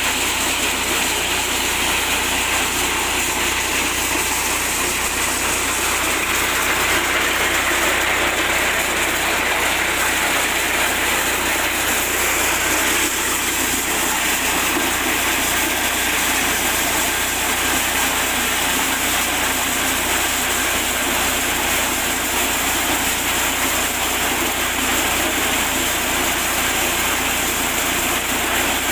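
Mini corn sheller driven by a small 8 hp petrol engine, running steadily with a loud mechanical noise.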